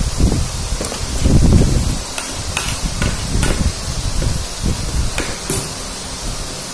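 Eating at a table: low thuds and the handling of food on a plate, loudest about a second and a half in, with several short sharp clicks of a spoon on the plate.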